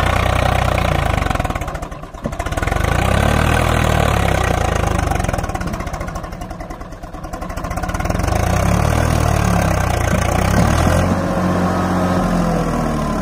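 Swaraj 744 FE tractor's three-cylinder diesel engine revving hard under load as the mired tractor strains to pull its loaded trolley out of the mud, easing off twice, about two seconds in and around seven seconds in, then building again.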